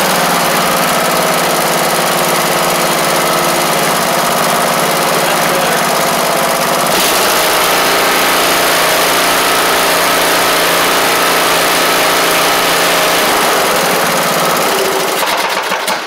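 Briggs & Stratton engine of a Craftsman LT1500 lawn tractor running steadily, with a change in tone about seven seconds in. Near the very end it starts to die away.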